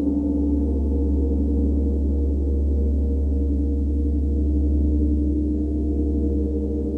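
Large tam-tam gong played with soft mallets, ringing in a steady, sustained wash: a deep low drone under many overlapping higher tones, with no separate hard strikes.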